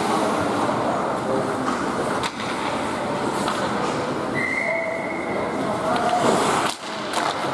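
Ice hockey rink game sound: a steady din of skates scraping the ice and distant crowd voices, with a few sharp knocks of stick and puck. A brief high held tone sounds about halfway through.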